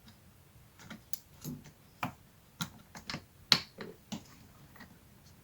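Light, irregular clicks and taps of metal and plastic as a dishwasher door-balance spring's hook and cord are pulled and worked into their slot, with one sharper click about three and a half seconds in.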